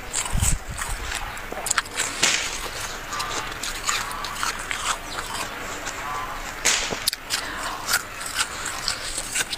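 Snow crunching: irregular crisp crackles and clicks over a steady hiss.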